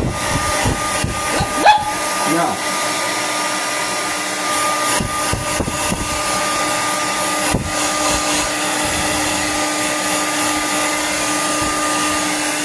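Small handheld hair dryer blowing steadily into a wet dog's coat: a constant rush of air with a steady hum under it. A few bumps and knocks break in, the sharpest about two seconds in.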